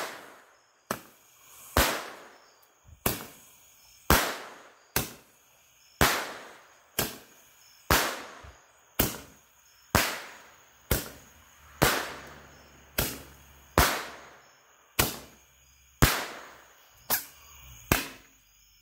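RGS 10-shot report candle firing: a steady string of about twenty sharp pops and bangs, roughly one a second, each shot's launch from the tube followed by its report in the air, the bangs trailing off in echo.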